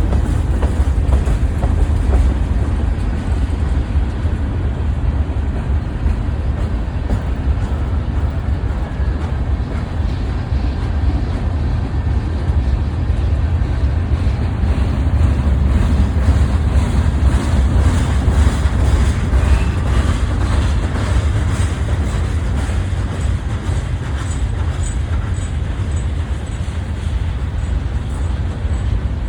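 Freight train rolling past: a steady, loud low rumble with faint clicking of wheels over the rails, and a run of evenly spaced light ticks in the second half.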